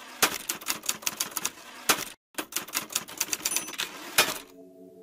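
Manual typewriter keys striking in quick succession, as a typing sound effect. There is a short pause about two seconds in and a heavier strike just after four seconds. Then the typing stops, and soft music with sustained tones begins near the end.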